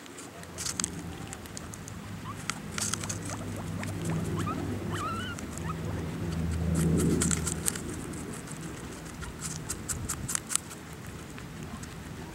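Guinea pigs chewing apple: many sharp crunching clicks, with a few brief faint squeaks near the middle. A low steady drone swells under the crunching and is loudest about seven seconds in.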